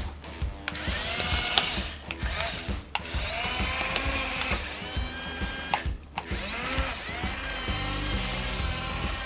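Small geared electric motors of a micro RC excavator whining as the cab slews and the arm moves. The whine rises in pitch at the start of each run and then holds steady, stopping and starting again several times.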